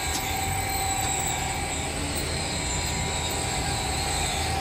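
Steady hum of machine-shop machinery, a motor running with a few constant whining tones, while the lathe's chuck stands still. A light click comes right at the start.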